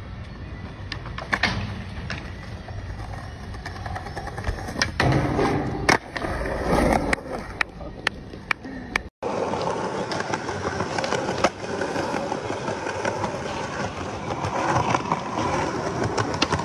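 Skateboard wheels rolling on smooth stone paving, with a string of sharp clacks as the board pops and lands. The sound cuts out briefly about nine seconds in, then the rolling and clacks pick up again.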